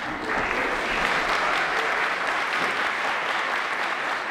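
Audience applauding: dense, steady clapping that builds in the first half second and holds.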